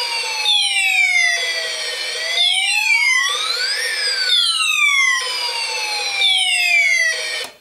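Snap Circuits Jr. speaker sounding the Space War Alarm Combo circuit: an electronic siren tone sliding slowly down, then up, then down again, overlaid with quick falling laser-zap chirps that repeat about every two seconds. It cuts off suddenly near the end when the circuit is switched off.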